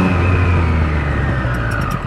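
Triumph Street Triple 765 RS's three-cylinder engine coming off the throttle, its steady note breaking into lower, rougher running as the bike slows in traffic. A whine falls in pitch through it, and a few faint ticks come near the end.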